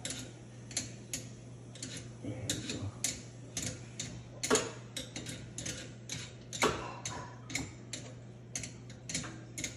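Irregular sharp clicks and taps, two or three a second, with a louder knock about four and a half seconds in and again shortly before seven seconds, over a steady low hum.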